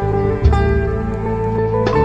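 Background music with plucked guitar-like strings over sustained low notes.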